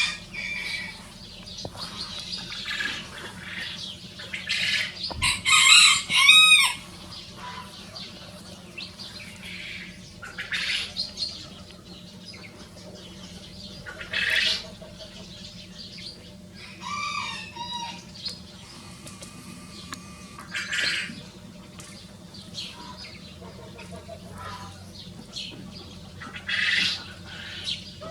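Rosecomb bantam roosters calling at intervals, with short crows and other chicken calls every few seconds.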